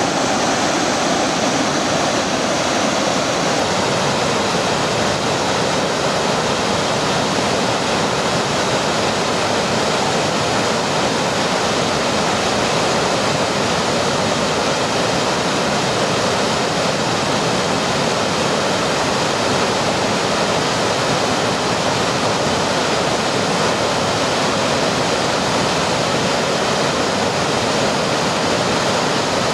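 Waterfall pouring over a rock ledge into a river pool: a loud, steady rush of falling water.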